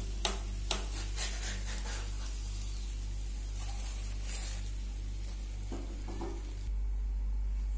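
Puran poli frying in ghee on a flat pan, sizzling, with a few sharp spatula scrapes and taps in the first two seconds. A steady low hum runs underneath, and the sizzle cuts off abruptly near the end.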